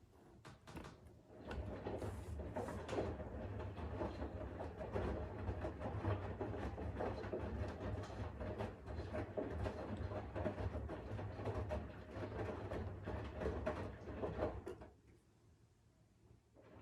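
Siemens iQ500 front-loading washing machine drum turning: a low motor hum with laundry tumbling inside, starting about a second in and stopping about two seconds before the end. This is the 15-seconds-on, 15-seconds-off drum rhythm of the cotton 60 °C wash.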